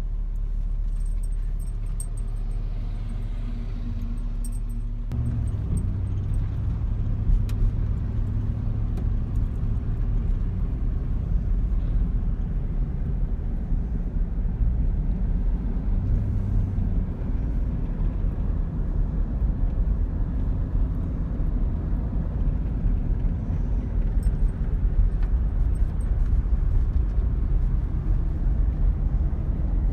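Car driving on the road: a steady low rumble of engine and tyre noise that gets louder about five seconds in and then holds steady.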